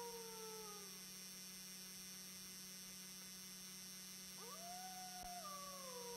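Wolf howling. One howl slides down and fades out within the first second; about four seconds in a new howl rises, holds, then glides down in pitch. A steady low hum lies underneath.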